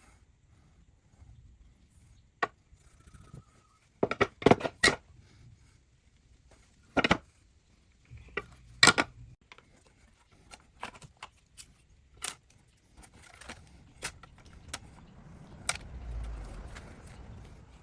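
Scattered clinks and knocks of hard objects being handled on a workbench: a quick run of several sharp clacks about four seconds in, single louder ones a few seconds later, then lighter ticks. A low rumble builds near the end.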